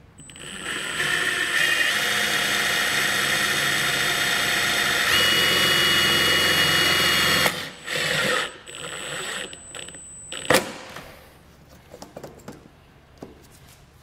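Cordless drill/driver driving a self-tapping screw into the vehicle's sheet-metal body to fix a trailer-wiring ground wire. It runs steadily for about seven seconds, its pitch stepping up partway through, then gives a short second burst, followed a couple of seconds later by one sharp click.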